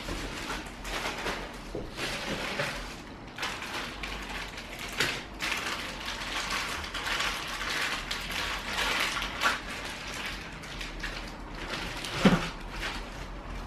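Plastic packaging crinkling and rustling as wrapped parts and a bag of papers are handled and unwrapped, with a single dull knock about twelve seconds in.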